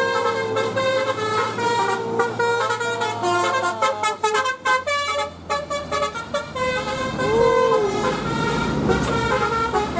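Bus's Basuri telolet multi-tone horn playing a melody of quickly changing notes. About seven seconds in it gives a swooping tone that rises and falls.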